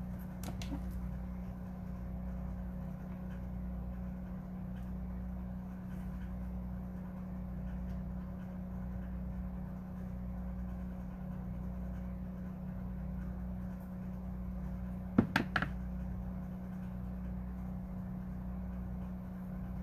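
Steady low mechanical drone from machinery running outside, muffled through the walls, which she guesses is someone sawing a tree. A few sharp clicks come about fifteen seconds in.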